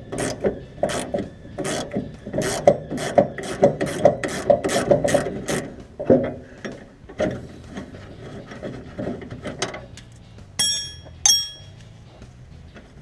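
Hand ratchet wrench clicking in steady strokes, about three a second, as a suspension nut is wound off, slowing and stopping after about six seconds. Near the end there are two ringing metallic clinks.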